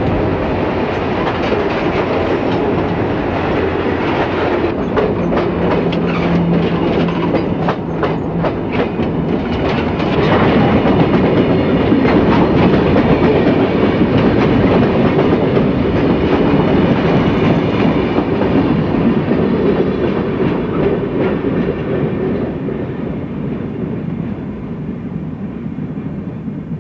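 Coal hopper cars of a freight train rolling past close by: a steady rumble of steel wheels on rail, with a run of wheel clicks over rail joints. It grows louder about ten seconds in, then fades as the train moves away near the end.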